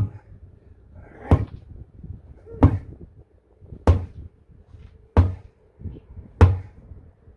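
Sledgehammer blows on a tractor rear tyre seated on its steel rim, struck while the tyre is levered off or onto the rim. Six heavy, sharp blows, about one every 1.3 seconds.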